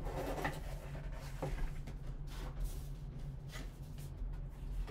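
Cardboard lid being worked off a white trading-card box by gloved hands: a series of short, soft scrapes and rubs of cardboard.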